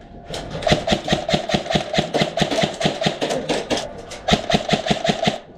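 Krytac Trident MKII PDW-M airsoft electric gun firing full-auto: a fast, even rattle of gearbox cycles and shots over the motor's whine. One long burst, a short pause a little before the four-second mark, then a second burst.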